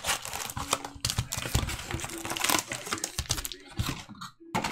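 Wrapped trading-card packs crinkling and rustling as they are pulled out of a cardboard retail box and stacked, with irregular crackles and light taps of cardboard throughout.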